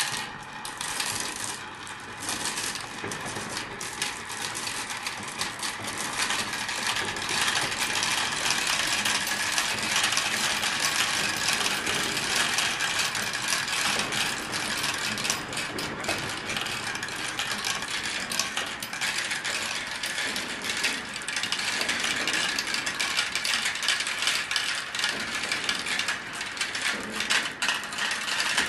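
Marbles clattering and rolling down a marble run: a dense, continuous rattle of many small clicks.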